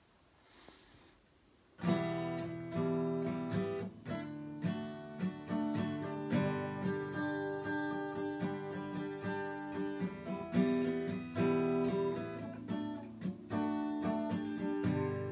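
Acoustic guitar starting about two seconds in and playing a song's instrumental intro of picked chords, each note ringing on.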